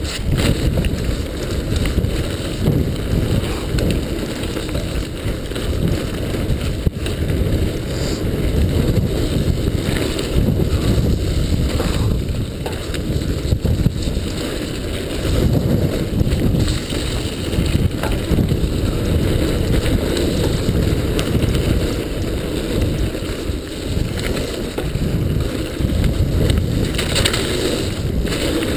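Mountain bike descending a rough forest trail at speed: wind buffeting the camera's microphone and tyres rumbling over the ground, with frequent knocks and rattles as the bike hits bumps.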